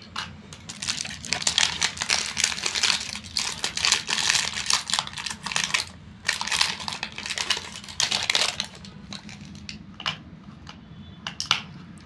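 Plastic clicking, rattling and crinkling from a toy remote control being handled while batteries are fitted into its battery compartment. The sound is a dense run of clicks for the first seven or eight seconds, then thins to scattered clicks near the end.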